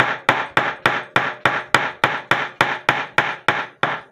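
Ball peen hammer striking a bent clock minute arbor laid on a wooden block: an even run of light blows, about three or four a second, each dying away quickly. The arbor is turned between blows to knock the bend out of it.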